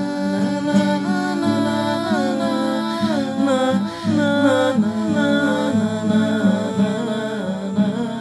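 Wordless wailing song: a voice sliding between long held notes over a steady low drone.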